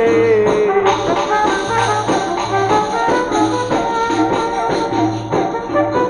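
Instrumental passage of an Egyptian sha'bi song: the band plays on over a steady beat between sung lines.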